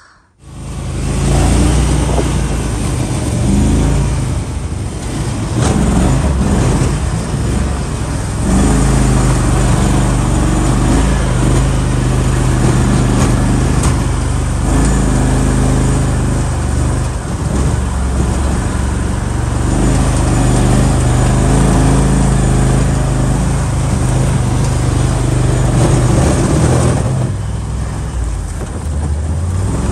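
Side-by-side utility vehicle's engine running as it drives over wet, uneven ground, the engine note stepping up and down with the throttle. It comes in suddenly about half a second in.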